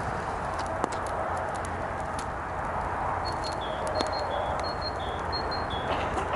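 Campfire of dry twigs crackling, with scattered sharp pops over a steady rushing of flames and wind. From about halfway in, a high two-note chirping repeats several times.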